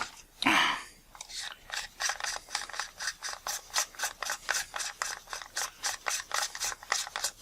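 Metal lens-barrel parts being twisted apart by hand: a louder scrape about half a second in, then a long run of short gritty rasping strokes, about three to four a second, as a threaded section of the optical block is unscrewed.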